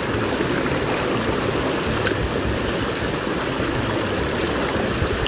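A small mountain creek rushing and splashing over rocks in a little cascade close by, a steady noise.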